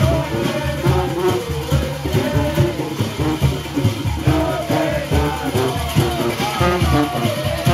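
Junkanoo band playing live: drums beating a fast, dense rhythm under brass horns carrying a melody.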